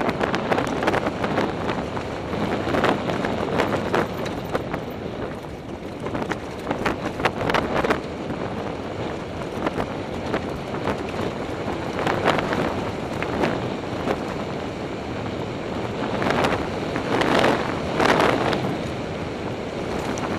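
Wind buffeting the microphone of a mountain bike's camera, over the crunch of tyres on a rough dirt and stone track, with the bike rattling and knocking irregularly over bumps, most strongly near the end.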